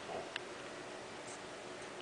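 Three-week-old puppies shifting about in a pile on a fleece bed: light rustling and a few small clicks over a steady background hiss.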